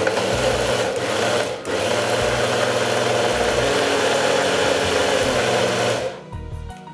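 Electric kitchen mixer-grinder blending a mango, curd and milk drink. It starts abruptly, breaks off for an instant about a second and a half in, runs on steadily and cuts off after about six seconds.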